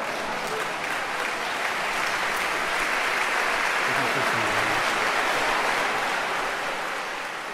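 Audience applauding, swelling toward the middle and tapering off near the end.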